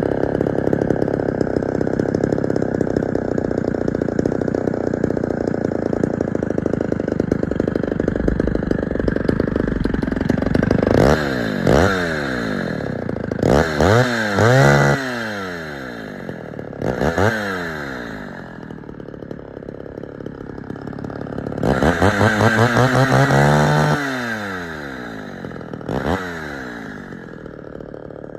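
Homelite Super XL two-stroke chainsaw running steadily, then revved several times from about ten seconds in, the pitch climbing and falling back with each blip of the throttle, with one longer rev about two-thirds of the way through.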